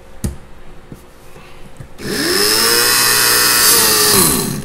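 Countertop blender grinding toasted sesame seeds with oil into tahini paste. After a light knock, the motor starts about two seconds in, quickly spins up to a steady whine, runs for about two seconds, then winds down with falling pitch near the end.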